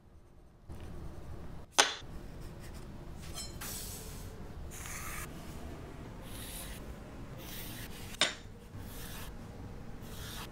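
Graphite pencil scratching lines across plywood along a steel rule, in several separate strokes. Two sharp knocks stand out, one about two seconds in and one about eight seconds in.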